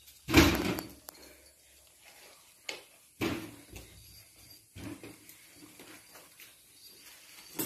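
A few short knocks and rattles. The loudest and longest comes about half a second in, with sharper clicks near three seconds and again near five seconds.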